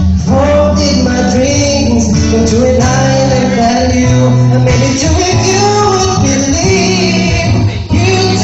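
A live band playing a slow soul ballad, with a singing voice over held bass notes.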